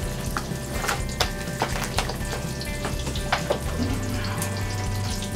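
Breaded green tomato slices frying in oil in a cast iron skillet, a steady sizzle, with several light knocks and clicks scattered through it.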